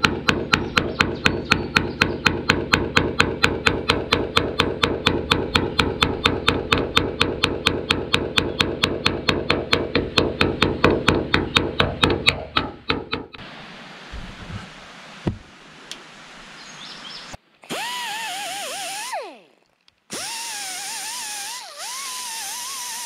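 Rapid, even hammer taps on the sheet-steel cab roof of a Chevy K10 pickup, about five a second, knocking the raised metal around an old drilled cab-light screw hole back down flush. The taps stop about 13 seconds in. Music with a gliding, wavering lead tone follows.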